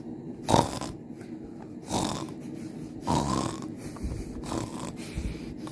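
Snoring: three loud, rough snores about a second and a half apart, then fainter ones.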